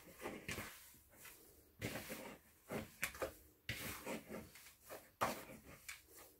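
A hand kneading and squeezing soft flour-and-salt Play-Doh dough in a plastic mixing bowl, the dough pressing and rubbing against the bowl in short, irregular strokes about once a second.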